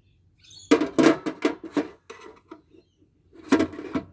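Tools and metal parts clattering and knocking while a solar inverter is dismantled by hand: a run of sharp knocks about a second in, then a second burst of clatter near the end.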